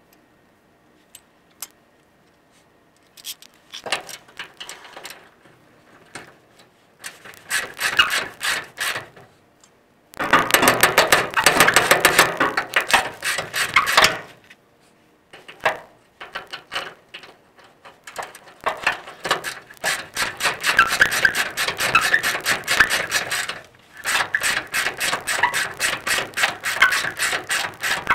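Hand socket ratchet clicking in quick runs of strokes, several bursts with short pauses, as bolts on the leaf spring hardware are turned.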